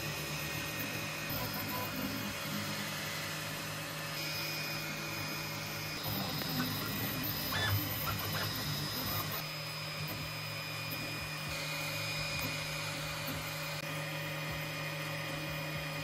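TwoTrees SK1 CoreXY 3D printer running a print: a steady whir of its fans and motors as the print head moves, with a few light clicks about seven to eight seconds in.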